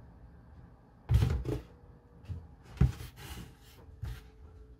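Several thumps and knocks of someone coming into the room, as of a door and footsteps. There is a loud cluster about a second in, a sharp knock a little before the middle's end, and a last thud near the end.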